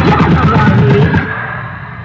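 Loud music with heavy bass, dipping slightly in level near the end.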